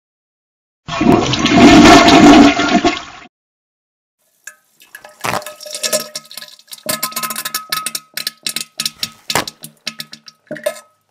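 A toilet flushing, starting about a second in and lasting about two seconds. It is followed by a fast, uneven run of clicks and rattles: a toilet-paper roll spinning on a wooden rod as paper is pulled off it.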